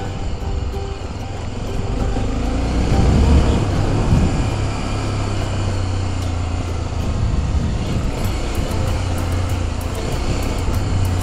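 Motorcycle engine running while riding, rising in pitch and level about three seconds in as it accelerates, then settling back to a steady run.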